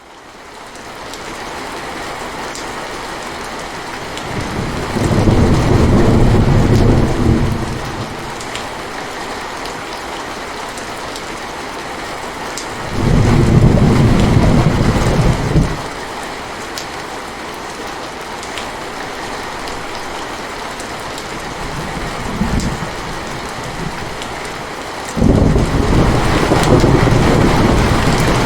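Steady rain with thunder, fading in over the first couple of seconds. Long, low rolls of thunder come about 5, 13 and 25 seconds in, each lasting two to three seconds, with a fainter one just before the last.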